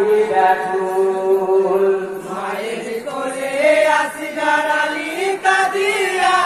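Men chanting a Bengali matam jari, a Muharram mourning song, together in long held notes that bend in pitch.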